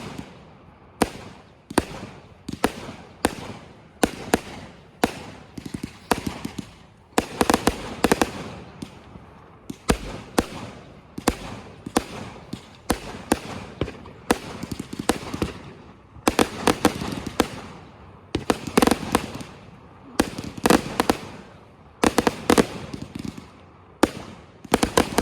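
Fireworks going off in a steady barrage: sharp bangs about once a second, many followed by crackling.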